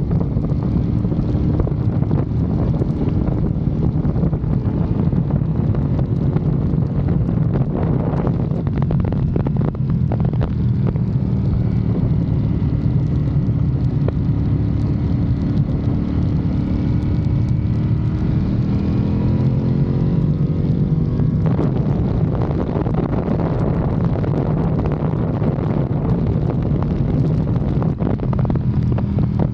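Motorcycle engine running under way, with heavy wind noise on the microphone. Past the middle the engine note rises steadily for several seconds, then breaks off abruptly, as at a gear change or a closing of the throttle.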